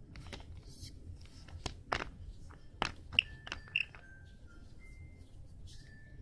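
Scattered light clicks and taps from a phone case being handled and wiped clean, with a few brief faint squeaks.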